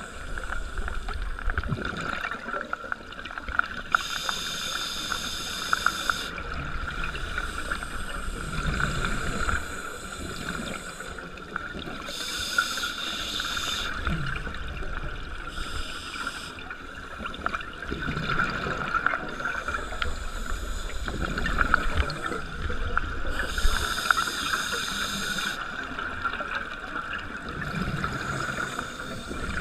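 Underwater ambience recorded by a scuba diver: a steady hum and low rumble, broken several times by bursts of bubbling hiss lasting a second or two, typical of a diver's regulator exhaust bubbles on each exhalation.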